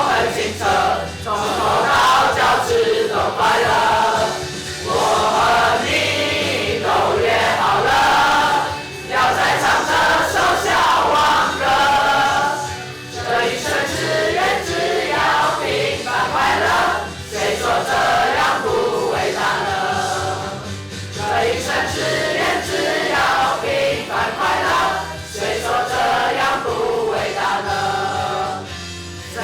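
A song with many voices singing together over a backing track with a steady bass. It goes in phrases of about four seconds, each broken by a short pause.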